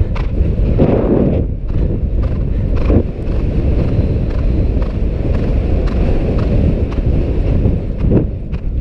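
Horse galloping on turf, its hoofbeats coming through as irregular dull thuds under heavy wind buffeting the rider-mounted camera's microphone.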